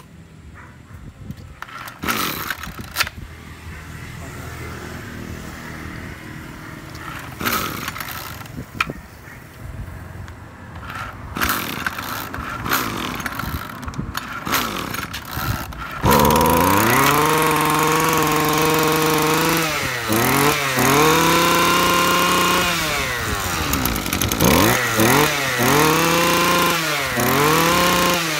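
Echo 26cc two-stroke brush cutter engine being pull-started. It sputters with several sharp pulls and knocks for about 16 seconds, then catches and runs loud, revved up and down repeatedly with the throttle.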